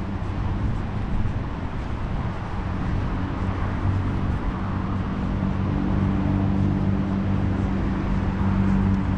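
Road traffic: a motor vehicle's engine hum over a steady rush of traffic noise, the hum growing a little stronger about three seconds in.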